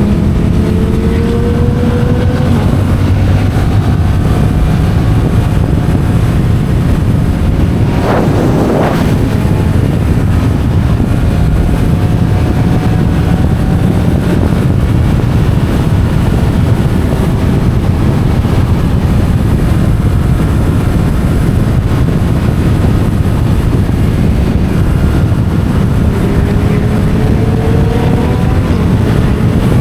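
Yamaha MT-07's parallel-twin engine running through an Akrapovic titanium exhaust at a steady cruising speed, with wind noise on the microphone. A brief rush of noise comes about eight seconds in, and the engine note climbs slightly near the end.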